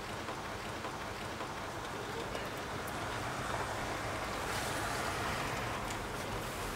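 Rain falling steadily, an even hiss with a low rumble underneath.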